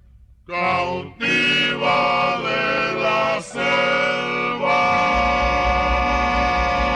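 Dance music over a sonidero's sound system. After a brief drop, a melody of long held notes starts about half a second in and pauses briefly twice, and a steady bass comes in around the middle.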